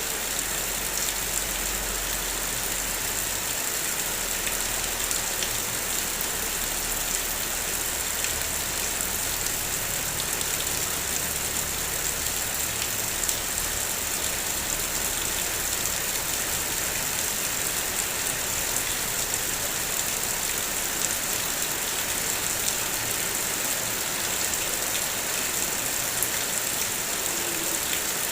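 Heavy rain falling steadily: a dense, even hiss flecked with small drop ticks. A faint low rumble runs underneath in the first part and fades out before the halfway point.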